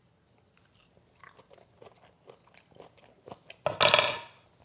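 A person chewing a bite of fried chicken with a crisp pork-rind crust: quiet, irregular crunches, then a brief louder sound near the end.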